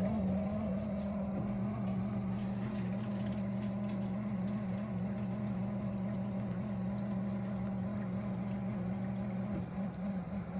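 Miele G6625 dishwasher running, with a steady low hum from its pump motor at the bottom of the unit. A second, deeper hum joins about a second and a half in and drops away near the end.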